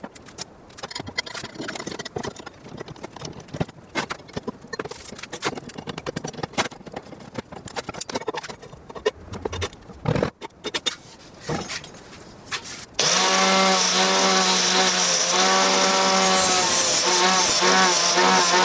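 Scattered clicks, knocks and rubbing of the tool being handled, then, about thirteen seconds in, an angle grinder fitted as a disc sander switches on and runs at speed with a steady high whine and a sanding hiss. Its pitch dips briefly a couple of times, as when the disc is pressed into the work.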